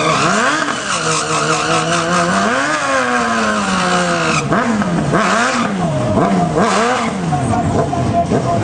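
A vehicle engine revved hard and let fall again and again. The revs swing slowly at first, then in quick throttle blips about twice a second in the second half.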